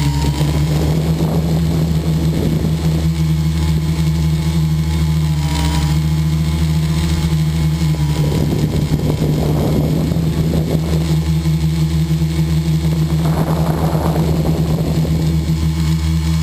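Steady drone of a model airplane's motor and propeller, picked up by a camera riding on board, with a brief dip in pitch about five seconds in.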